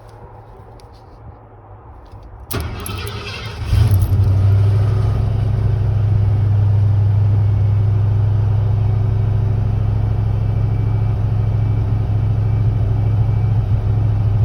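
Carbureted Ford 302 Windsor V8 being cranked for a first start: the starter engages about two and a half seconds in, the engine catches about a second later and settles into a steady idle.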